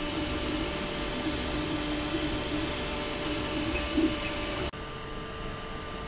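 Desktop FDM 3D printer running a print: its stepper motors whine in shifting tones as the print head moves, over a steady hiss. Near the end it cuts off suddenly to a quieter steady hum.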